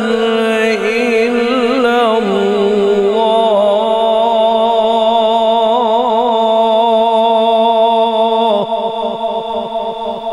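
A male qari recites the Quran in melodic tajweed style through a PA microphone, drawing out 'illā' (going into 'Allāh') in one long ornamented note with vibrato. The note ends about eight and a half seconds in and trails off in reverberation.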